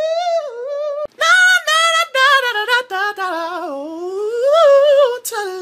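A man singing unaccompanied in a high voice, holding notes with a waver in them. The singing breaks off briefly about a second in, then goes on in a second song.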